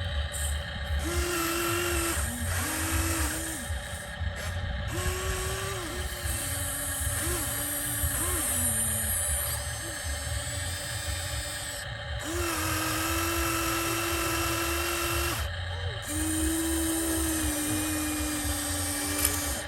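Small electric motors of radio-controlled construction toys whining as they run, starting, stopping and changing pitch every second or few, over a low rumble.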